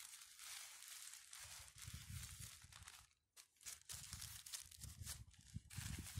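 Black plastic bag crinkling and rustling as hands wrap and tie it around a tree branch, with a short break a little past halfway.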